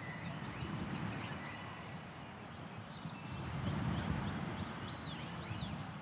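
Tropical forest ambience: a steady high drone of insects with a few short bird chirps, over a low rumbling noise.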